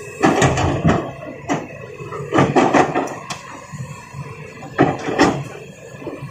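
Stones clattering and knocking against a toy truck and excavator, in three bursts of impacts with a single knock between the first two, and no engine sound under them.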